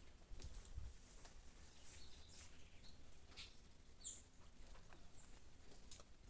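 Faint rain falling with small birds chirping every second or so: short, high chirps over a soft steady hiss.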